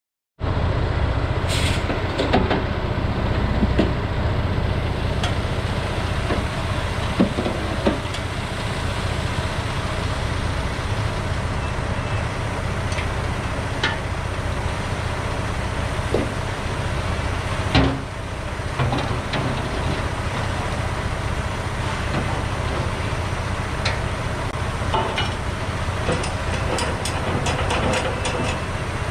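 Logging truck's diesel engine running steadily under way, a low drone with scattered rattles and knocks and a run of quick ticks near the end.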